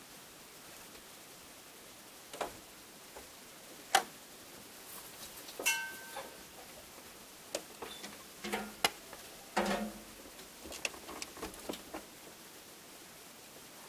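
Scattered clicks and knocks from the snow-covered Kubota snowblower being handled before it is started, with a short metallic ring about six seconds in and duller thumps near ten seconds; the engine is not running.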